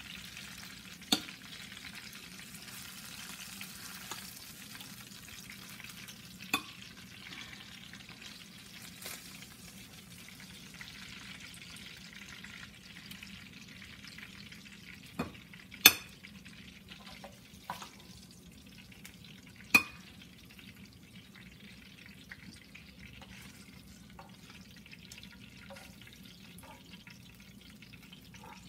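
Fish pieces frying in hot oil in a nonstick frying pan, a steady sizzle, with sharp clicks of a metal spoon knocking against the pan as the pieces are lifted out. The sizzle thins out in the second half as the pan empties.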